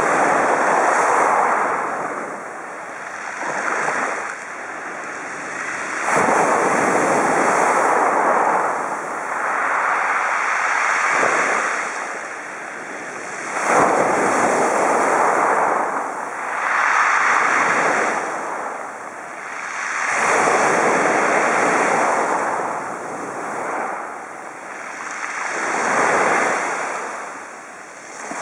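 Small waves breaking and washing up over a pebble beach. The surf swells and fades every few seconds, with one sharper break about halfway through.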